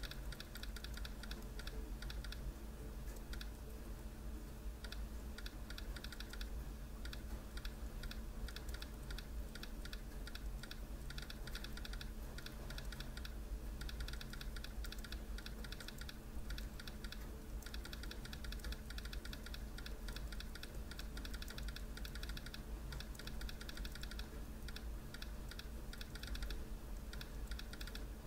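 Fast, steady typing on a laptop keyboard, keys clicking rapidly and unevenly during a touch-typing drill. A low steady hum runs underneath.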